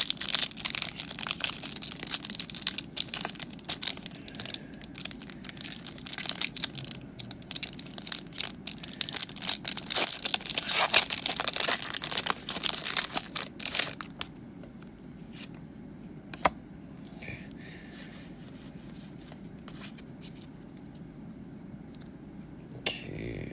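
Foil wrapper of a Pokémon trading-card booster pack being crinkled and torn open: dense crackling and tearing for about fourteen seconds, then only a few faint clicks and rustles.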